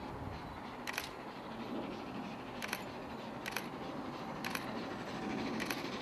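Southern Railway King Arthur class 4-6-0 steam locomotive 30777 Sir Lamiel approaching under steam with an express, heard as a steady rumble that begins to grow louder near the end. Five or so sharp clicks come at irregular intervals over it.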